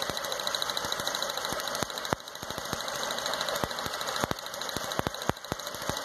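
Dodge Stratus 2.0 four-cylinder engine running rough with a misfire, while spark leaks through a hole in a spark plug wire and jumps to a grounded test-light probe in sharp, irregular snapping clicks, several a second and thickest about four to five seconds in. The leaking spark is what makes the cylinder misfire.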